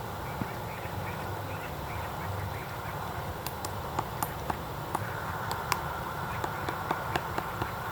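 White-backed woodpecker pecking and chipping at wood while digging out larvae: irregular sharp taps, sparse at first and coming more often after about three seconds.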